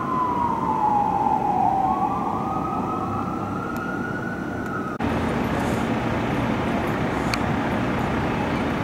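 Fire engine siren on a slow wail, falling in pitch and then climbing back up, over a steady street rumble. About five seconds in it cuts off abruptly, leaving only a steady background rumble.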